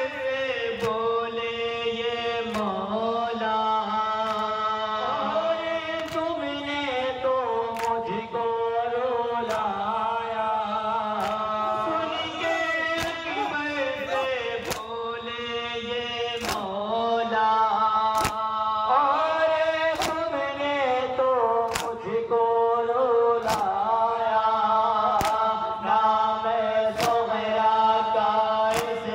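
Male voices chanting a nauha, a Shia mourning lament, through microphones, with a crowd of men striking their chests in matam, sharp beats about once a second.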